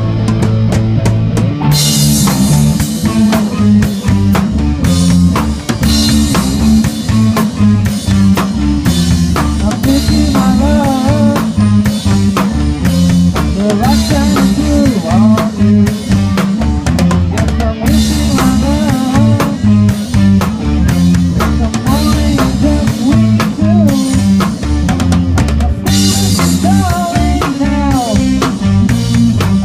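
Band music driven by a busy drum kit, with kick, snare and rimshots over a moving bass line. Bright cymbal passages come back every eight seconds or so.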